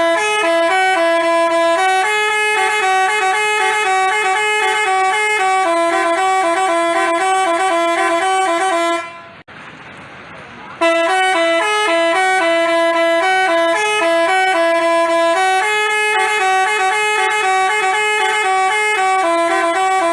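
Multi-tone telolet bus horn of the basuri type playing a repeating tune of stepped notes. About nine seconds in the tune breaks off for roughly two seconds, leaving a faint hiss, then starts again.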